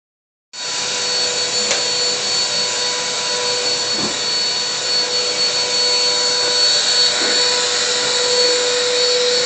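Vacuum cleaner running steadily, its motor giving a constant whine over a rushing hiss, with a few faint knocks as it is pushed about.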